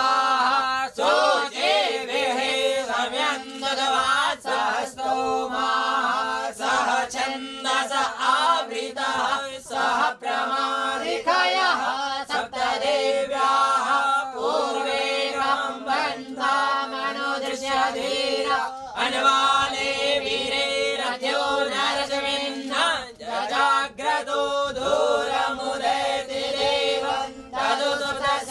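Sanskrit mantras chanted without pause in a melodic, sing-song recitation over a steady drone tone.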